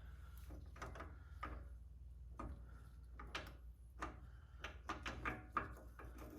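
Small steel parts of a Spartan locker clicking and knocking as they are worked out of a Chrysler 8.25 differential carrier, in a run of irregular light taps and clunks over a low steady hum.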